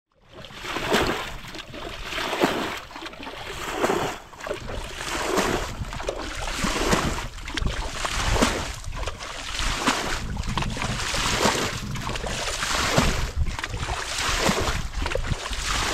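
Muddy canal water being bailed by hand with a metal bucket: repeated scoops and pours, a splashing gush about every second and a half.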